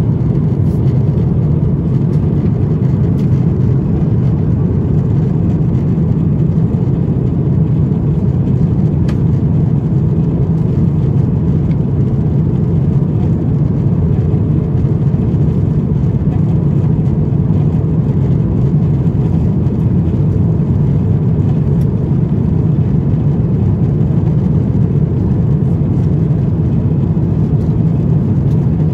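Steady low drone inside the cabin of an Airbus A350-900 in flight: airflow over the fuselage and its Rolls-Royce Trent XWB engines, heard through the cabin wall by the window seat.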